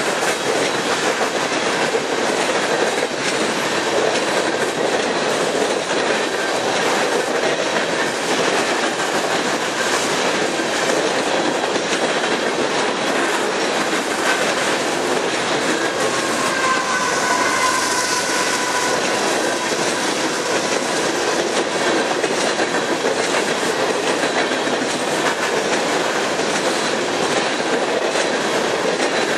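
Coal train hopper cars passing at speed, about 60 mph: a steady, loud rush and clatter of steel wheels on the rails. About two-thirds of the way through, a brief faint high squeal rises above it.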